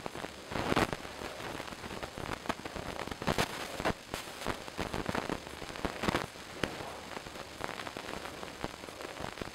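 Strawberry-cherry jam at a rolling boil, being stirred: irregular popping and spluttering bubbles over a steady hiss, during its last minute of boiling before it is done.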